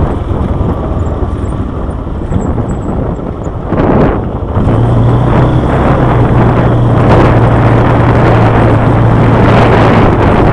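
Quad bike engine running on a rough dirt track, with wind noise on the microphone. The engine is lower for the first few seconds, then picks up about four and a half seconds in and runs steadily.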